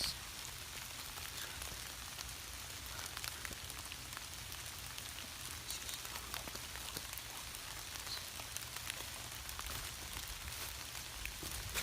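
Light rain falling: a steady soft hiss with scattered ticks of single drops.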